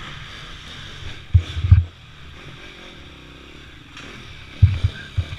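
Off-road motorcycle engine running at low revs, with two short clusters of loud, low thumps, one about a second and a half in and one near the end.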